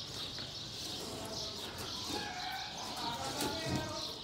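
Outdoor ambience with birds chirping and distant voices. In the second half come a few drawn-out pitched calls.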